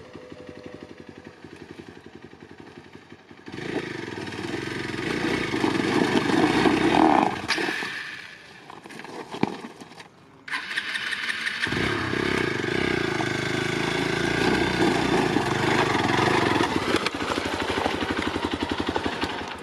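Single-cylinder Hero XPulse 200 4V motorcycle engine running with an even pulse, quieter at first, then getting much louder about three and a half seconds in. After a sudden break about ten seconds in, it runs loudly and steadily under load.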